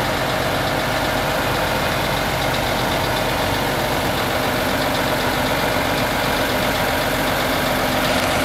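Mercedes-Benz 3241 8x4 concrete mixer truck's diesel engine idling steadily.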